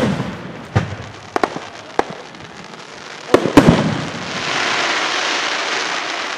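Aerial fireworks going off in a display: several sharp bangs in the first few seconds, then a steady hiss for the last two seconds or so.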